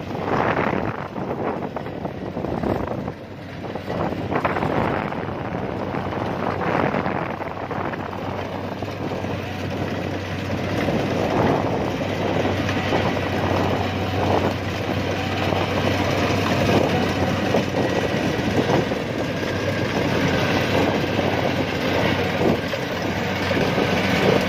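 Diesel engine of a Kubota DC-70 tracked combine harvester running steadily, with a low hum under the clatter of its machinery.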